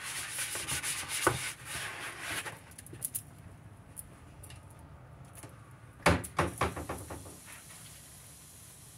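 Rubbing and scrubbing on a plastic dish tub for the first couple of seconds. About six seconds in there is a sharp knock, followed by a short clatter of clicks.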